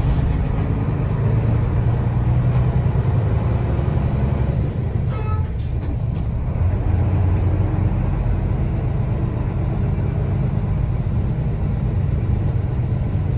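Cabin sound of a Nissan Diesel Space Runner RM city bus: the diesel engine and drivetrain droning steadily under way. A couple of short clicks come about six seconds in.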